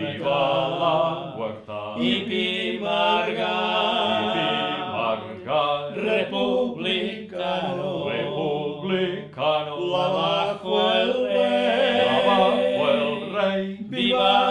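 An older man singing unaccompanied in long held notes, a sung republican chant, with short breaks between phrases.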